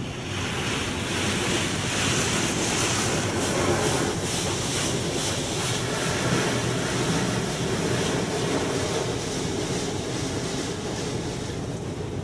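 Spray from a D&S 5000 in-bay automatic car wash drumming on the car's roof and windows, heard from inside the cabin. It comes on suddenly at the start and then runs on steadily.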